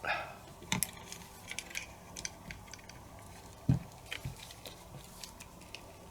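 Small clicks and taps from handling the cassette deck's transport mechanism and tools, with one louder knock a little past halfway.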